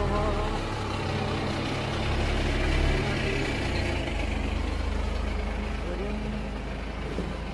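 A motor vehicle engine idling nearby: a steady low rumble that holds even throughout.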